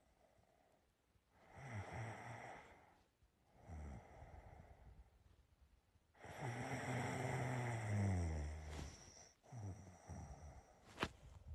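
A sleeping person snoring: two short snoring breaths, then a longer snore of about two and a half seconds starting about six seconds in. A single sharp click comes near the end.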